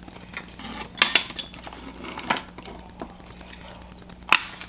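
Chopsticks and food clicking against a plate: several sharp, separate clinks, the loudest near the end.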